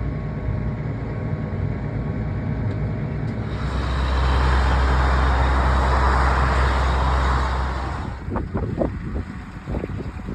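Farm machinery engine running steadily. From about three and a half seconds to eight seconds a louder rushing noise rides over a deep steady hum, then it gives way to irregular knocks and gusty noise.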